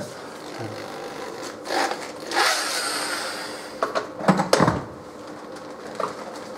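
Handheld electric drill running as a hole in a car's oil sump is drilled out to a larger bit size. The motor hums steadily, speeds up a few times, and winds down with a falling pitch about four and a half seconds in.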